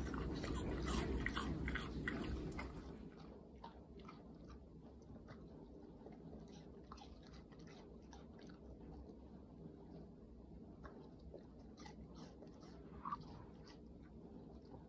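A dog chewing watermelon chunks: dense, wet crunching for the first three seconds, then fainter, scattered chewing clicks. A brief short tone about thirteen seconds in.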